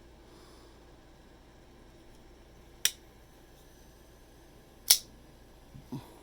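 CRKT 6525 spring-assisted flipper knife's blade snapping: two sharp metallic clicks about two seconds apart, then a soft low knock near the end.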